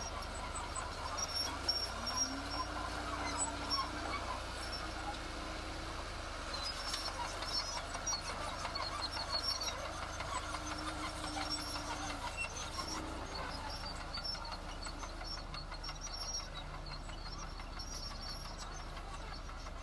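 Heavy construction machinery running: a steady engine drone under a continuous clatter of small knocks, with a tone that rises about two seconds in and comes back near the middle.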